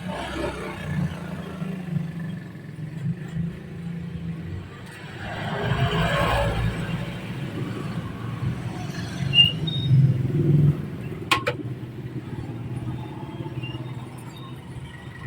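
Steady low mechanical rumble, swelling louder for about two seconds midway, with two sharp clicks near the end.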